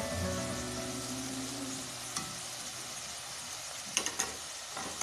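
Small red potato pieces frying in oil in a kadai, a steady sizzle as they turn firm and crisp. A spatula clicks against the pan a few times, about two seconds in and again near the end.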